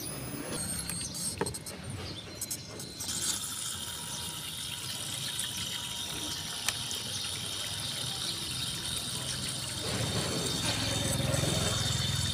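A small electric pump starts about three seconds in and runs steadily, pushing water out of the row of holes in an air cooler's water-distribution bar so that it sprays and splashes into a plastic tub. A few sharp clicks come before it starts.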